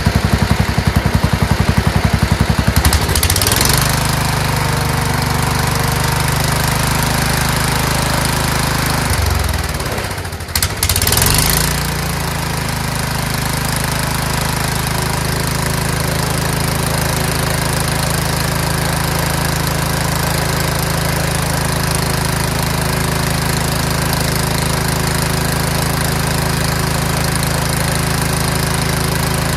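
Scotts by Murray 1542 lawn tractor's engine running. It has a rapid pulsing beat for the first three seconds, then settles into a steadier run. The sound drops briefly about ten seconds in, then picks back up and runs steadily.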